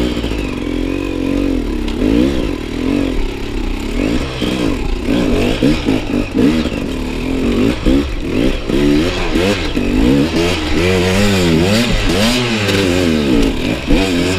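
Enduro motorcycle engine being ridden with the throttle worked on and off, its pitch rising and falling over and over, about once a second.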